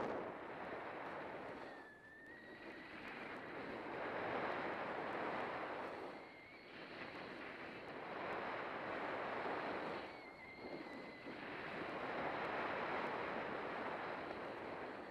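Skis carving turns on packed snow: a scraping hiss that swells and fades with each turn, about every four seconds.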